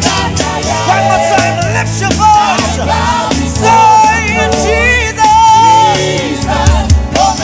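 Gospel praise music from a band, with a singing voice that wavers in pitch over steady bass and drums.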